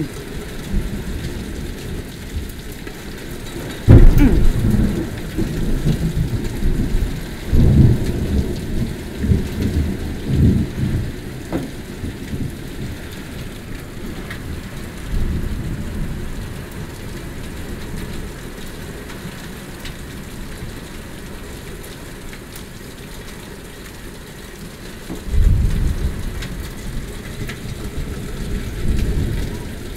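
Thunderstorm: steady rain falling, with thunder. A sudden loud clap about four seconds in rolls on in waves for several seconds, a smaller rumble comes around the middle, and another long rumble follows near the end.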